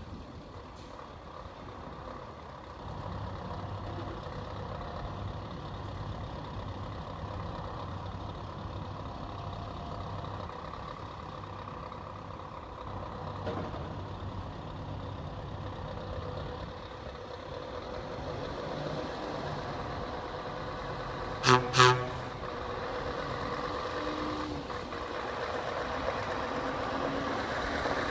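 Scania S730's V8 diesel running as the tractor unit drives across the yard, growing louder as it comes closer in the second half. About three-quarters of the way through come two short, loud horn blasts about half a second apart.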